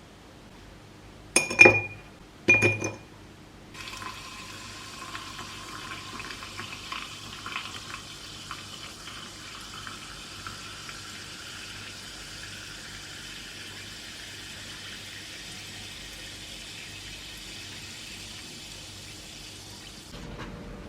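Two sharp glass clinks, then liquid running steadily into a glass container for about sixteen seconds, its pitch rising slowly as the container fills, until it stops suddenly.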